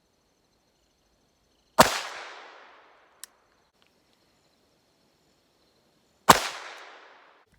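Two shots from a Clerke First .22 Long Rifle revolver fired double action, about four and a half seconds apart, each sharp crack ringing out over about a second. A faint click sounds between them.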